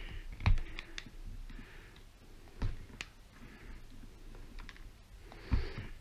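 Hand side cutters snipping through a cable's outer plastic sheathing: a few separate sharp clicks and snips spread out with small handling knocks between them.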